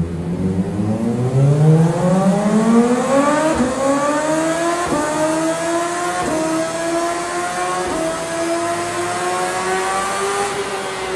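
CFMoto 500SR motorcycle's engine through an aftermarket exhaust, accelerating hard from low revs with the exhaust note climbing steeply, then shifting up about four times while the pitch keeps rising.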